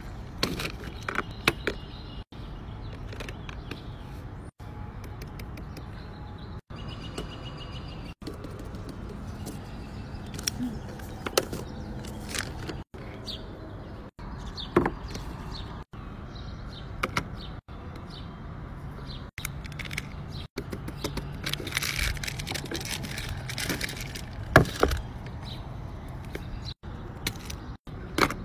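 Outdoor background noise with occasional bird chirps, and scattered sharp clicks and taps of fidget toys being handled and set down on a wooden table. The sound is broken by brief gaps of silence every couple of seconds.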